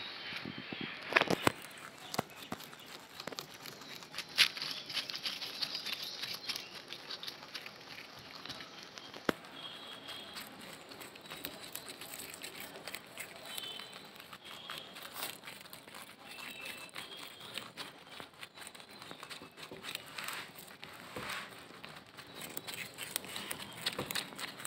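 Several rabbits gnawing and crunching raw carrots: a dense, uneven stream of small crisp clicks and crackles, with a few sharper crunches.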